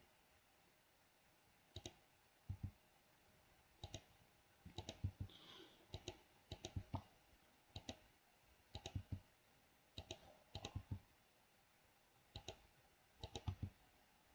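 Computer mouse clicks and keyboard key presses, single and in quick clusters of two to four, every second or two.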